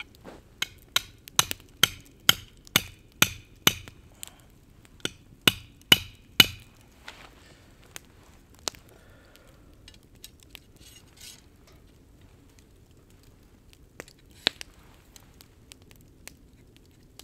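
Steel upright of a handmade campfire pot crane being hammered into the ground: two runs of sharp, ringing metal strikes, about two a second, the last ones the loudest, followed by a couple of single knocks.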